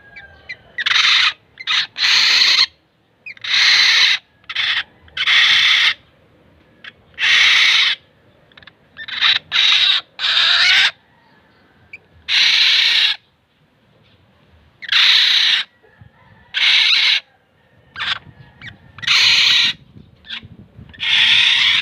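Black-naped oriole giving a string of harsh calls, each about half a second to a second long, repeated every one to two seconds with a few short notes in between.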